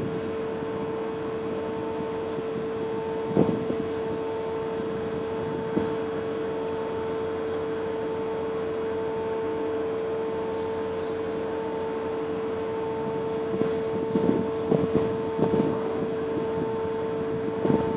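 Steady machinery hum from a passing container ship, holding one unchanging note with a fainter higher note pulsing on and off above it. A few short bumps break in about three seconds in and again near the end.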